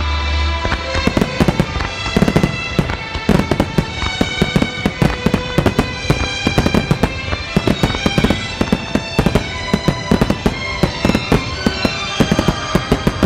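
Aerial fireworks going off in rapid succession, many sharp bangs and crackles a second, over music with sustained melodic tones.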